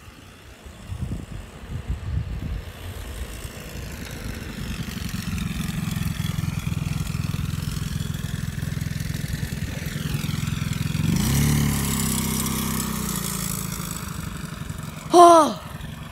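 A motor vehicle approaching and passing close by: its engine hum grows louder, peaks about eleven seconds in with the pitch dropping as it goes past, then fades. Near the end, a brief loud cry falling in pitch.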